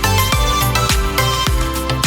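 Upbeat background music with a steady, punchy kick-drum beat under layered instruments.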